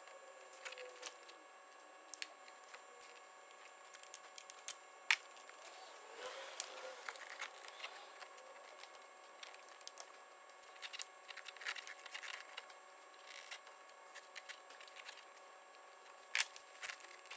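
Faint, irregular clicks, taps and scraping of small hand tools, a pick and a wood screw, breaking up a broken plastic pipe stub lodged inside a rubber hose and picking it out. A brief stretch of scraping comes about six seconds in, over a faint steady hum.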